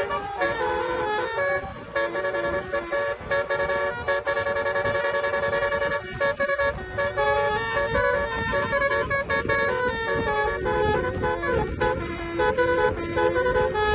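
Basuri multi-tone car horn playing a tune in held notes that step from one pitch to the next, with a low vehicle rumble growing from about halfway.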